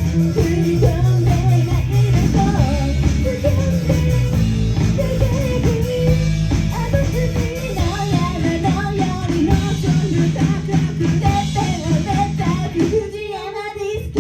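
Rock band playing live: a singer over electric guitar, bass and drums. About thirteen seconds in, the bass and drums drop out for a moment.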